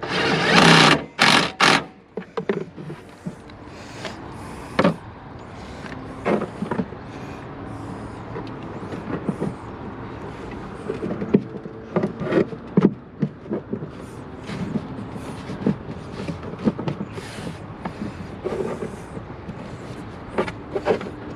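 Scattered clicks and knocks of tools and intake parts being handled on the truck's engine bay, over a steady background hum. A loud rush of noise fills the first second or two.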